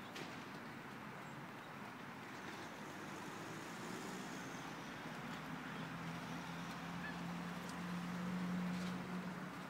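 A motor vehicle's engine hum that grows louder through the second half and peaks near the end, over steady outdoor noise, with a few faint taps of a football against a shoe.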